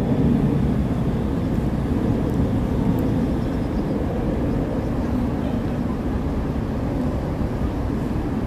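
Steady low rumble of outdoor city background noise, with a couple of faint clicks about two and three seconds in.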